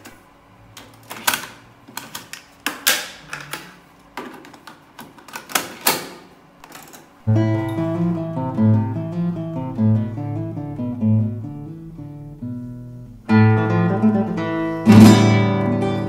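Clicks and knocks from a Denon DR-M2 cassette deck's buttons and cassette door as one tape is taken out and another put in. About seven seconds in, acoustic guitar music starts playing back from the new cassette, breaks off briefly about thirteen seconds in, then resumes.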